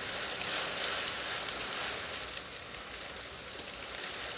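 Heavy hurricane rain coming down in sheets: a steady, dense hiss of rain with a few sharper drop ticks.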